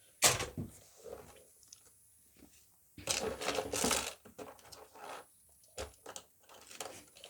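Small plastic fidget toys being handled: a sharp knock just after the start, then scattered clicks and rustling, with a longer stretch of rustling about three seconds in.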